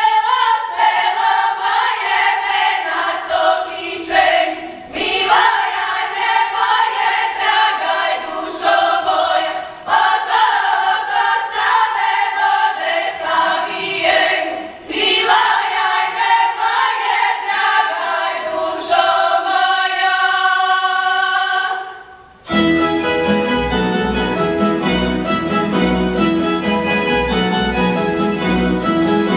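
Women's choir singing an unaccompanied Croatian Posavina folk song in phrases of about five seconds. About 22 seconds in the singing stops, and a tamburica band starts a dance tune with plucked strings and a steady beat.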